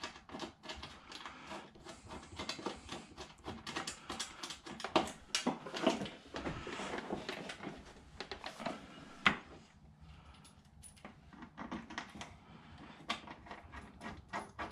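Irregular metallic clicks and clinks of hand tools and hardware as a ground cable is bolted between the engine's cylinder head and a riv nut. The clicks are busiest in the first two-thirds and thin out after about ten seconds.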